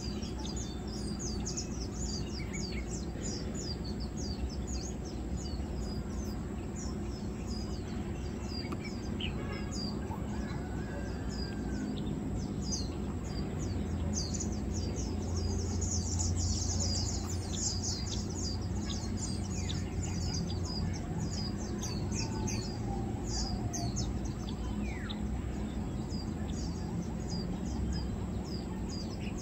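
Many short, high-pitched bird chirps overlapping throughout, over a steady low background rumble that grows louder for a few seconds midway.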